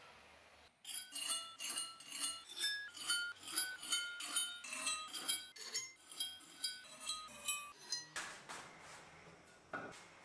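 A short melody of bell-like chiming notes, about two to three a second, each note at a different pitch, ending about eight seconds in. Then faint workshop noise with one brief scrape near the end.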